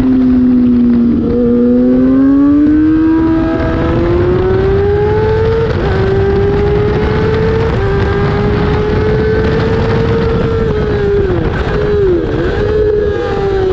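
Race motorcycle engine heard from its own onboard camera, pulling hard under throttle. Its pitch climbs steadily, drops sharply about six seconds in at a gear change, and holds high. Near the end it dips briefly twice, then falls.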